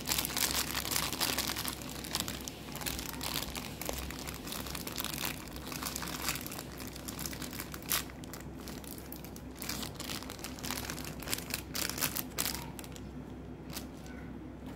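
Clear plastic packet of Nutties chocolate balls crinkling as it is handled and torn open by hand, a dense crackling that thins out over the last couple of seconds.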